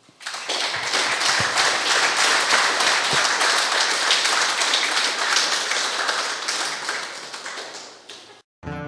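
Audience applauding, a dense patter of many hands clapping that starts just after the start, thins out near the end and is cut off abruptly.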